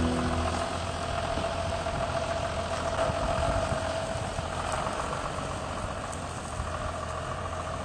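John Deere tractor's diesel engine running steadily as the tractor drives with a large square hay bale on its front loader, a steady whine sounding over the engine.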